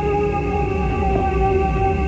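Eerie horror film score: long held notes over a low, quickly repeating pulse.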